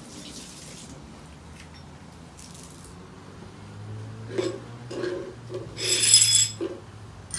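Broom sweeping broken glass across a tiled floor: soft brushing, then scattered clinks of glass shards, with the loudest tinkling of glass about six seconds in.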